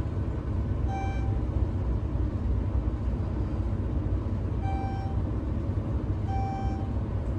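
Schindler-modernized elevator car travelling between floors with a steady low rumble, sounding three short electronic beeps: one about a second in and two more less than two seconds apart near the end, the car's floor-passing tone.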